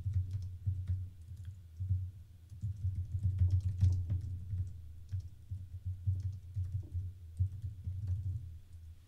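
Typing on a computer keyboard: an irregular run of key clicks with dull thuds.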